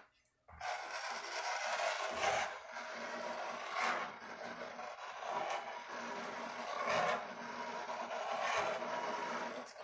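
A hand trowel scraping across a tabletop as it spreads a pool of epoxy resin: a continuous rasping scrape in repeated back-and-forth strokes, starting about half a second in, with a louder swell every couple of seconds.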